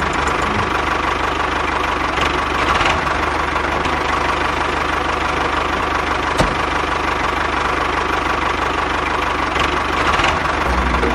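A small motor running steadily with a fast, even pulse, with one sharp click about six seconds in.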